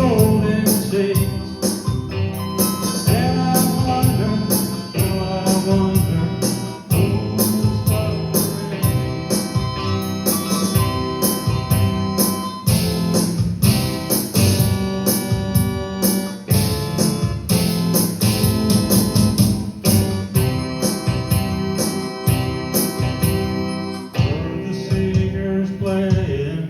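A live band playing a song with a singer, drums keeping a steady beat under the singing and instruments.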